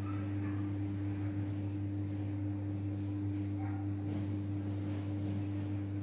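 A steady low electrical-sounding hum, with faint soft handling sounds of hands squeezing and kneading sticky coconut dough in a nonstick pan.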